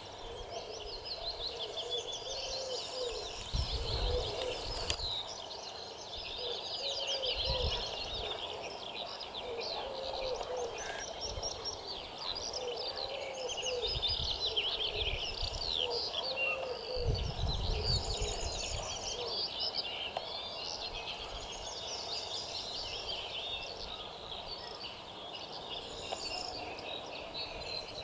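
A dense chorus of many songbirds singing at once, with a lower call repeated every second or two beneath it. Gusts of wind rumble on the microphone a few times.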